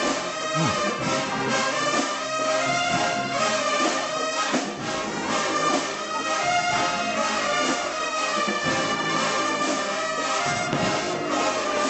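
HBCU marching band brass section playing a slow ballad, trumpets, mellophones and low brass holding sustained chords together in a balanced, even blend.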